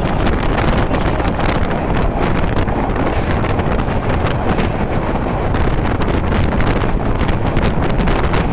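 Wind buffeting the microphone at the open door of a moving train, over the train's steady running noise with frequent clicks and knocks.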